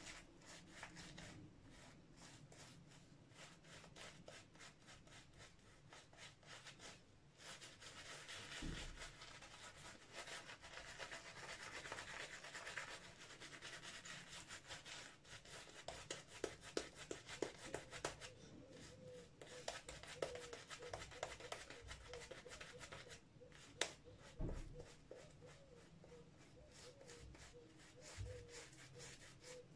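Shaving brush lathering shaving soap onto a bearded face: faint, quick brushing and swishing of the bristles through the lather, with a run of small clicks a little past halfway.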